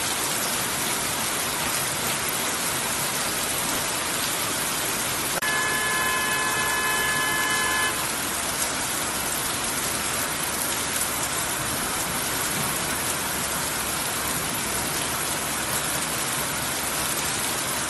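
Heavy monsoon rain pouring steadily onto a street. About a third of the way in, a vehicle horn sounds one steady note for about two and a half seconds.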